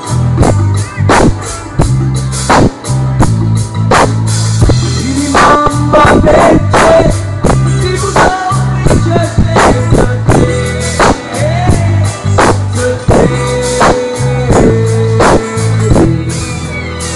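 Live pop band playing loudly through a stage PA: a steady drum-kit beat with bass and guitar, and a male voice singing over it.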